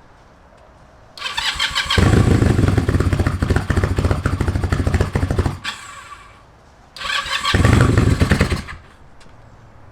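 Kawasaki KZ440 parallel-twin motorcycle being cranked on its electric starter with the choke on: a starter whir about a second in, then about three and a half seconds of rapid pulsing cranking that stops, and a second shorter try of about two seconds near the end. It does not keep running.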